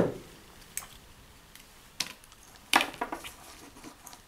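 Handling noise from the plastic monitor and its interface cable on a tabletop: a few sharp clicks and light knocks. The loudest come at the start and again a little under three seconds in.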